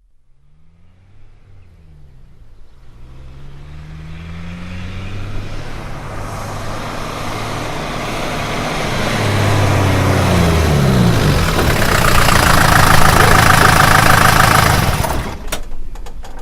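A school bus approaching and growing steadily louder, its engine pitch rising as it pulls through the gears, then falling as it slows down to a stop. Near the end there are a few sharp clicks.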